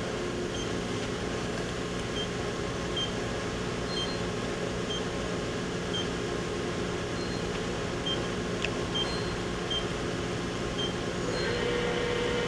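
Steady hum of a Mori Seiki NLX-2500SY CNC turning center standing powered up, with short electronic beeps from time to time as keys are pressed on its control panel. About 11 seconds in, the sub-spindle starts turning and a steady tone joins the hum.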